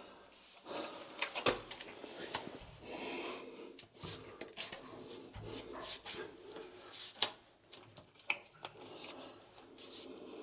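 Scattered light clicks, taps and rubbing from plumbing fittings and pipe being handled and lined up on a water-heater connection.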